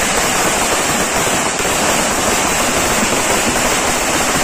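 Ground firework going off, throwing sparks: a loud, dense, unbroken crackle and hiss.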